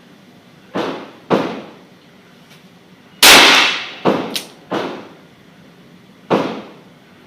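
Handgun shots at a shooting range: about seven sharp reports at uneven intervals and of differing loudness. The loudest comes about three seconds in, followed by a quick cluster of three.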